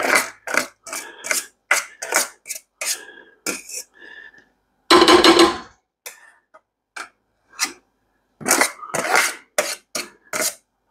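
Metal spoon scraping soft vegetable pulp out of a fine-mesh metal strainer onto a plate: a run of short scrapes and taps, with one louder clatter of metal on metal about five seconds in.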